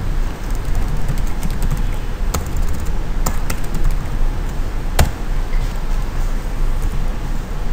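Computer keyboard keys clicking in a few scattered, irregular strokes as code is typed, the sharpest click about five seconds in, over a steady low background hum.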